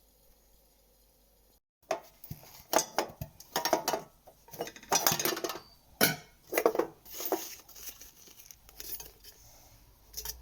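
Faint room tone, then about two seconds in a run of irregular clinks, clatters and short scrapes, like household objects such as dishes or utensils being handled.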